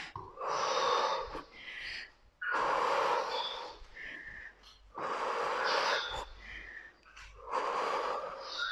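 A woman's heavy, audible breathing from exertion during lunges: four long, blowing breaths about two and a half seconds apart, with shorter breaths between them.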